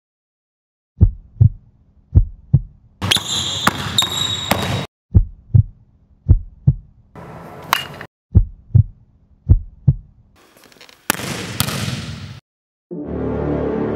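Heartbeat sound effect: six low double thumps, lub-dub, in three pairs of beats, broken by short bursts of hissing noise. About a second before the end a low rumbling swell begins.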